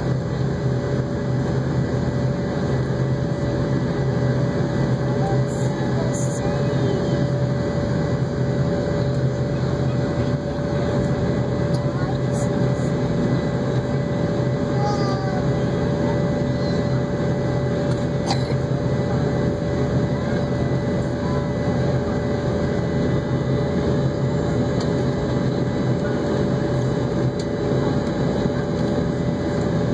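Steady jet engine and rushing airflow noise inside an airliner cabin in flight, with an even low hum and a fainter steady tone above it.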